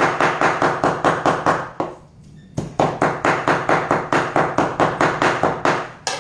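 Large knife chopping raw beef diaphragm (pannicolo) on a wooden cutting board, quick even strokes about seven a second. The chopping stops briefly about two seconds in, then resumes. This is the meat being hand-chopped with the knife for tartare, not ground.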